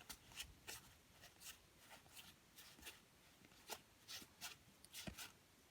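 Faint handling of board-game cards: soft, irregular ticks and brushes as cards are slid and set down one at a time.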